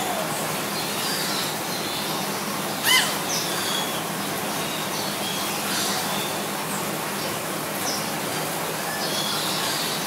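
Bird-house ambience: scattered small bird chirps over a steady background hiss, with one loud, short call about three seconds in.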